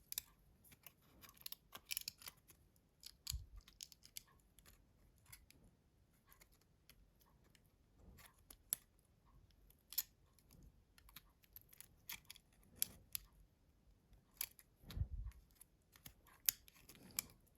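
Faint, irregular small clicks and taps of a Nokia C2-06 mobile phone's parts being handled as a flex cable is fitted during reassembly, with two soft low bumps, about 3 seconds in and near the end.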